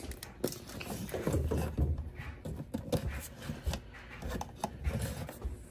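Cat 5e network cable rubbing and rustling as it is handled and drawn through the hole of its cardboard box, with scattered small clicks and a few soft knocks.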